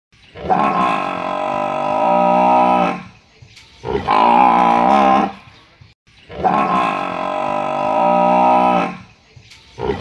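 Buffalo bellowing: drawn-out calls with quiet gaps between them, two long ones of about two and a half seconds alternating with shorter ones of just over a second.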